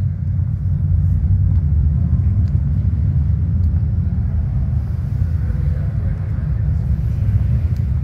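A steady low rumble, with a few faint ticks above it.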